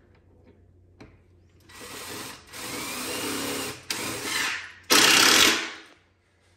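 Power drill running in four short bursts, the last and loudest stopping abruptly, with a small click before the first.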